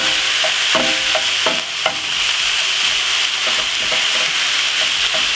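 Raw minced beef sizzling in a hot frying pan with onions, spring onion and thyme as it starts to brown, while a wooden spoon stirs and scrapes it around the pan. A few short knocks in the first couple of seconds.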